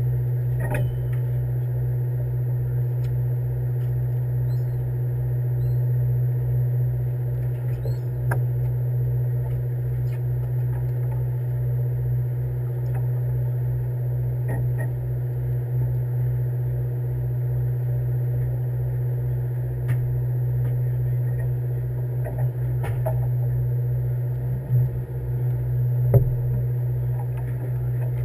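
Fishing boat's engine running steadily: an even low hum with a regular pulsing throb beneath it, picked up through the hull. A few faint knocks sound now and then.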